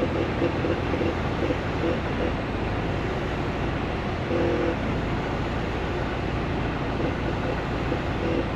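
Semi truck running: a steady, unbroken engine rumble with a wash of noise over it.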